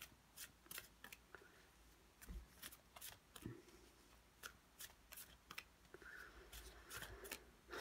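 Faint shuffling and handling of tarot cards: a scatter of short, soft clicks and flicks of card stock at an irregular pace.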